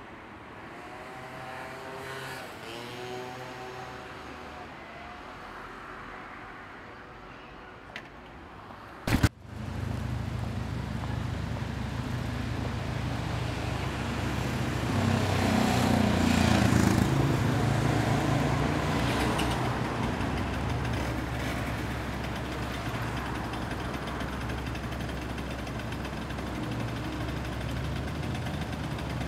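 Faint street sound for the first nine seconds, then a sharp click and a steady low engine drone from a motor scooter being ridden along the road. The drone swells for a few seconds about halfway through as a car passes alongside.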